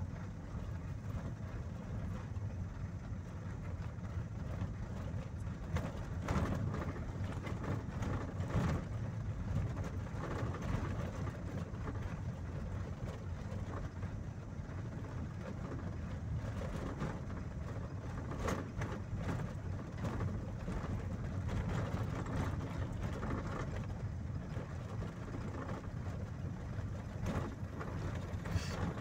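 Engine and tyre noise of a moving vehicle heard from inside the cabin: a steady low rumble, with a few short knocks or rattles along the way.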